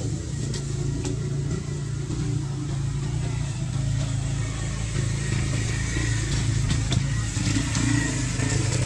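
Steady low motor drone, like a vehicle engine running nearby, with a few faint clicks.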